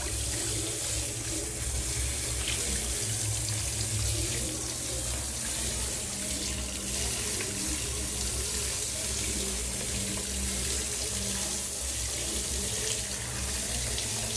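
Water running steadily from a tap, splashing on a tiled shower floor.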